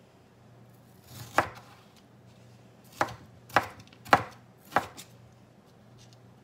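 Kitchen knife chopping green bell pepper on a plastic cutting board: five sharp knocks of the blade striking the board, the first about a second and a half in, then four in quicker succession.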